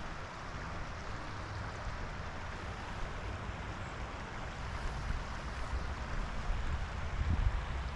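Steady rush of a flowing river or stream, with low, uneven wind rumble on the microphone that grows near the end.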